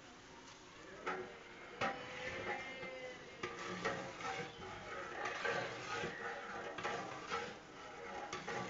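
Metal cookware clinking and knocking now and then, a dozen or so sharp clinks, over the low sizzle of oil and rice in a large aluminium biryani pot on a wood fire.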